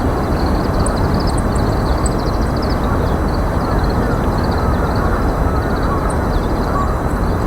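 Steady low rumbling outdoor noise, with small birds twittering throughout in many short, high chirps.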